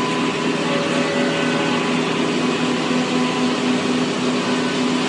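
Steady mechanical hum and whir of industrial machinery running in a CNC machining cell, with a few steady tones held through it.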